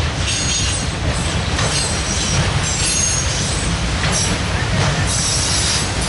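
Freight train of autorack cars rolling steadily past: a continuous low rumble of wheels on rail, with a high squeal now and then.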